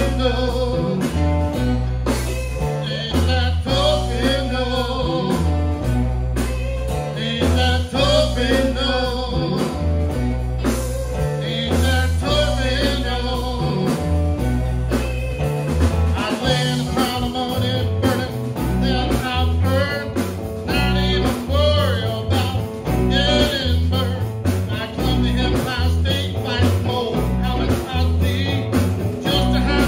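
Live blues band playing: a man singing into a microphone over two electric guitars and an electric bass guitar.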